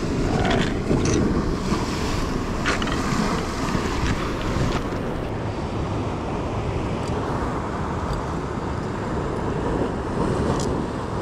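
Wind buffeting the microphone over the wash of ocean surf on a rock shelf. There are a few sharp knocks and clicks in the first five seconds.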